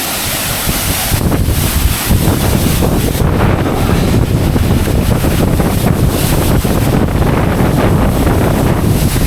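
Khun Korn Waterfall's water crashing down close by: a loud, steady roar, with wind and spray buffeting the microphone.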